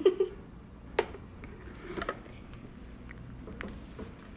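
Stiff homemade glitter slime being stretched and worked by hand, with a few short sharp sticky clicks and snaps about a second apart, then fainter ticks.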